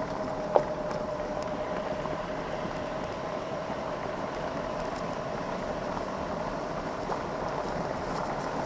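Golf cart driving along a gravel road: a steady noise of tyres on gravel, with a faint steady whine and one sharp knock about half a second in.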